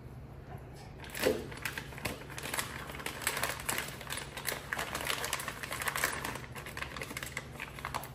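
Rapid, irregular metallic clicking and rattling, starting about a second in, as the flywheel is worked by hand at its hub on the Porsche 911 engine's crankshaft.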